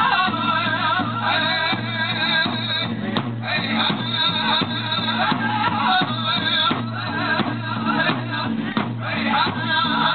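Powwow drum group singing a grass dance song in high, wavering voices while beating the big drum.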